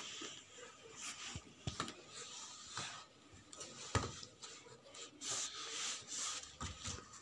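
Soft rustling and a few light knocks of people shifting on foam floor mats, the clearest knock about four seconds in.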